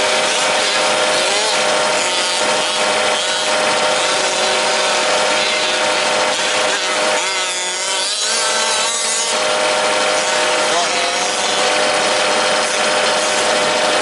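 Several 1/5-scale two-stroke petrol RC truck engines running at once, a steady overlapping engine noise.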